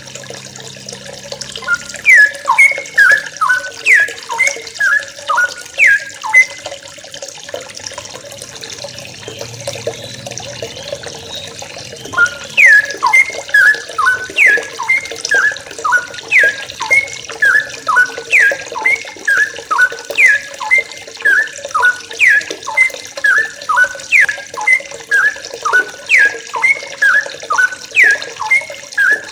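Yellow-vented bulbuls (trucukan) calling in quick series of short, falling chirps, several a second, with a lull of about five seconds a quarter of the way in, over a steady rush of running water.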